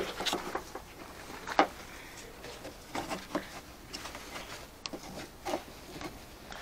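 Scattered light clicks and knocks of parts and tools being handled while car trim is put back together, with one sharper click about a second and a half in.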